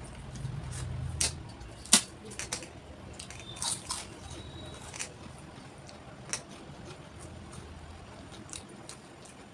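Eating close to the microphone: chewing and wet mouth sounds with scattered sharp clicks, the loudest about two seconds in.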